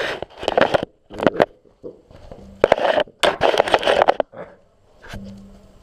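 Springer Spaniel puppy mouthing and chewing on a GoPro camera right against its microphone: irregular bursts of scraping and crunching with sharp clicks, dying away about a second before the end.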